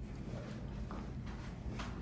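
Soft rustling and a few light taps from hands working on a client's body and clothing during manual therapy, over a steady low room hum.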